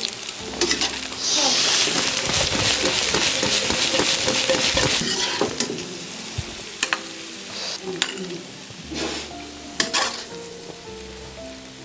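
Food sizzling in hot oil in a wok while a metal ladle stirs and scrapes it, loud for about six seconds. Then the sizzle dies down and a few sharp clinks of the ladle against the wok and bowl come as the food is scooped out.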